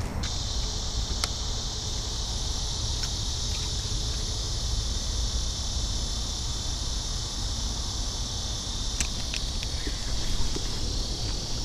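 Steady, high-pitched insect chorus buzzing without a break, with a few faint clicks.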